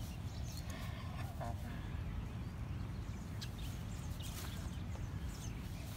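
Outdoor park ambience: a steady low wind rumble on the microphone, with a few short, thin bird chirps.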